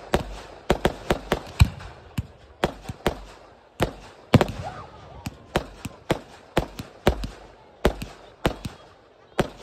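Fireworks display: aerial shells launching and bursting in quick succession, a fast irregular run of sharp bangs, about two to three a second.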